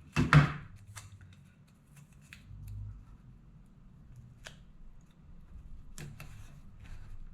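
Hands taping small wooden die faces together: a loud pair of sharp clicks about half a second in, then a few scattered lighter clicks and snaps.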